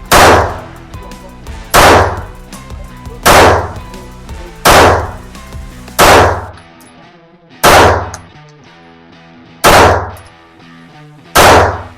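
Springfield Prodigy pistol firing eight single shots, about one every second and a half, the gaps growing slightly longer toward the end. Background music plays underneath.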